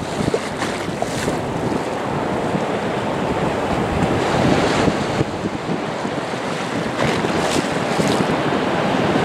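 Steady rushing of wind buffeting the microphone, mixed with surf washing ashore, swelling briefly a few times.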